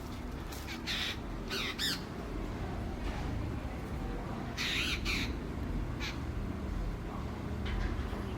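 Several short, harsh bird calls, mostly in pairs, over a steady low rumble.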